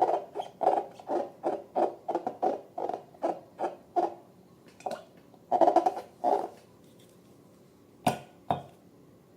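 Rhythmic squishing and squeaking of slime and a rubber balloon being worked by hand, about three squelches a second, stopping about four seconds in. A louder flurry follows a little later, then two sharp clicks near the end.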